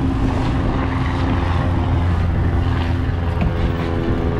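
Fishing boat's engine running steadily under way, a low drone mixed with the rush of wind and wake water.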